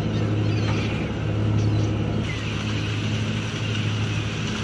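Fishing boat's engine running with a steady, even drone.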